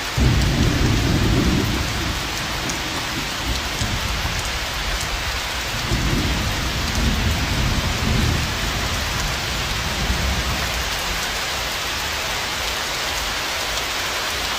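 Steady heavy rain with low rolling thunder, rumbling loudest near the start and again about six to eight seconds in.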